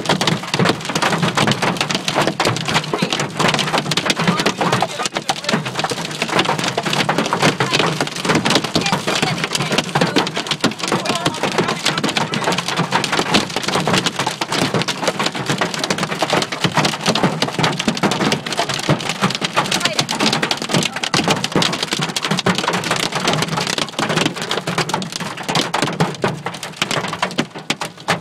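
Large hailstones hitting a car's roof and windshield, heard from inside the cabin: a dense, unbroken clatter of impacts. The hail is big enough to crack the windshield.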